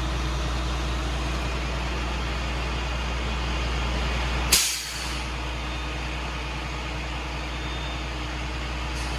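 Tow truck running with a steady low engine rumble. About halfway through comes one short, loud burst of hissing air.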